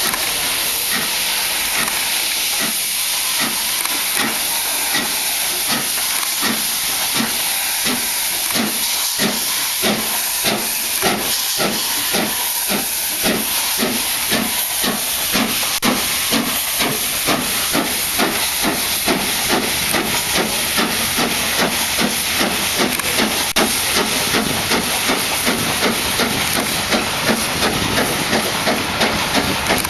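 Four-cylinder LMS Princess Coronation class steam locomotive No. 6233 Duchess of Sutherland pulling away with a passenger train. A steady hiss of steam runs under an even exhaust beat that quickens as the engine gathers speed.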